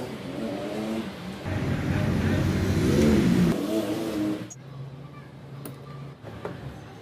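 An engine revving, its pitch rising and falling, loudest around three seconds in and cutting off abruptly about four and a half seconds in.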